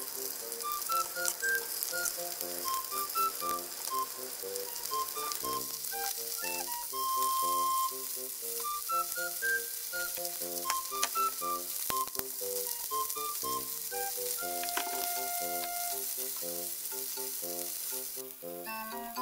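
Salted salmon pieces sizzling as they fry in hot olive oil in a frying pan, a steady hiss that dies down shortly before the end.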